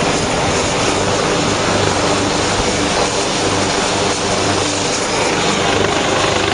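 Black Hawk military helicopter running on the ground: a loud, steady engine and rotor noise with no change in pitch.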